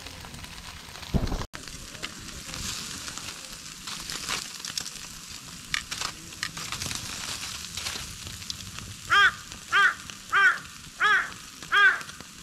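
Foil-wrapped fish sizzling on a grill over a wood fire, with small crackles from the fire. Near the end a carrion crow caws five or six times in a quick even string, each caw about two-thirds of a second apart.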